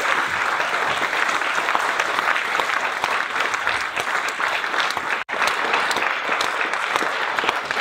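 Audience applauding steadily, a dense patter of many hands clapping, with a momentary break in the sound about five seconds in.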